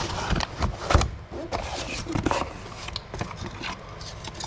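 Packaging being handled and unwrapped: irregular rustling and scraping with short clicks, and a louder knock about a second in.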